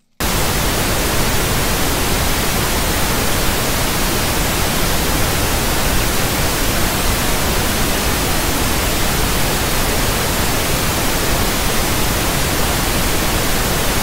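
Loud, steady TV static hiss, a white-noise sound effect that cuts in abruptly just after the start.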